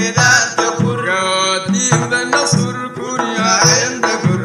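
Sudanese madeeh praise singing: men's voices singing a melodic line over large hand-held frame drums beating a steady rhythm, about two strokes a second.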